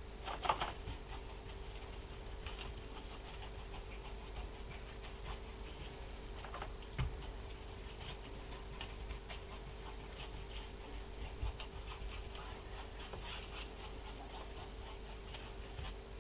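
Faint, irregular swishes and scratches of a paintbrush stroking fresh acrylic paint over a wetted, painted board, wet into wet, over a steady faint hum.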